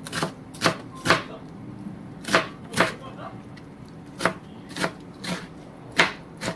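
A kitchen knife chopping food on a cutting board: about ten sharp, separate strokes at an uneven, unhurried pace, often in pairs about half a second apart.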